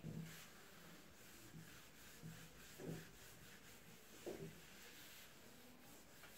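Handheld whiteboard eraser rubbing across a whiteboard, wiping off marker writing in faint repeated strokes, two of them a little louder about three and four seconds in.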